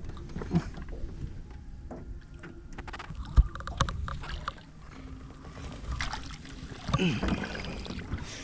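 Handling noises aboard a small fishing boat: scattered knocks and rattles, with one sharp thump about three and a half seconds in. A brief voice sound comes about seven seconds in.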